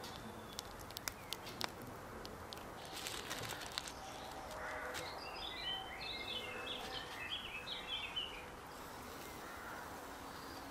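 Faint, sparse crackles from the wood fire burning in a folding hobo stove, then a bird singing a quick warbling phrase for a few seconds from about the middle on.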